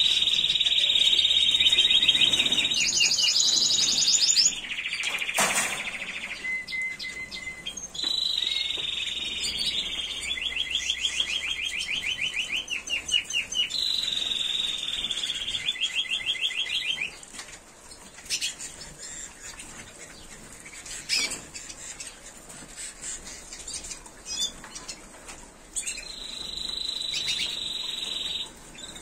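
Spanish Timbrado canaries singing in long trilled phrases of rapidly repeated notes, each phrase several seconds long. Near the end there is a quieter stretch of scattered chirps and a few clicks before another trill starts.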